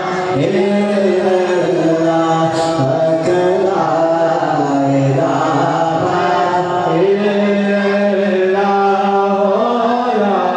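Devotional chant-like singing: voices holding long notes that shift slowly from one pitch to the next, with no clear words.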